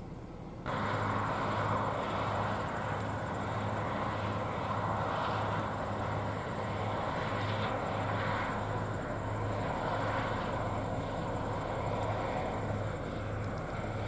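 New Holland CR9040 combine running steadily as it harvests soybeans. The steady drone comes in abruptly just under a second in, replacing a quieter hum.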